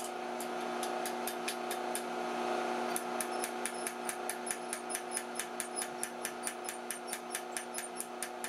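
A light hammer strikes glowing quarter-inch steel rod on an anvil in rapid, light blows, about five a second, forging a square corner at the bend. A steady hum runs underneath. The blows are faint at first and grow sharper after about three seconds.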